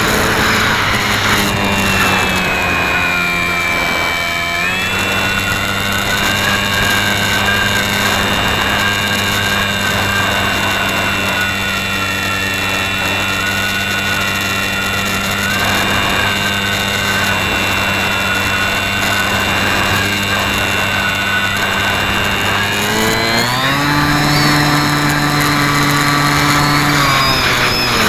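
Model airplane's motor and propeller heard from the onboard camera, running steadily with a pitched whine and wind rush. The pitch rises about 23 seconds in as the throttle is opened, and drops back shortly before the end.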